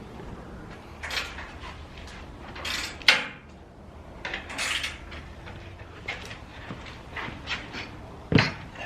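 A truck grille being handled and fitted onto the front of a Chevrolet Silverado: scattered rustles, scrapes and clicks, with a sharp snap about three seconds in and a knock near the end.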